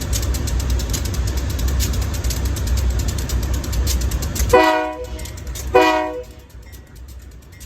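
Freight train's diesel locomotive rumbling, then its air horn sounds two short chord blasts about a second apart; the rumble drops off right after.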